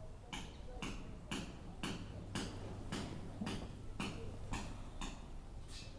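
Paintbrush working acrylic paint into fabric with short, regular strokes, about two a second, over a faint steady hum.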